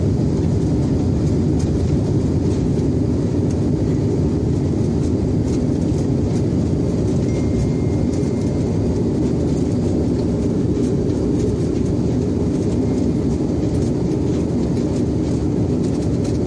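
Cabin noise of a SpiceJet Bombardier Q400 turboprop rolling along the runway after landing: a steady low rumble of engines and wheels, heard from inside the cabin.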